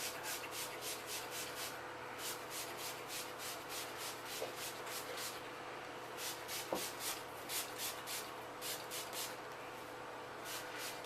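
Heat protectant spray bottle misting onto hair: quick sprays in runs of several, about three or four a second, with short pauses between runs.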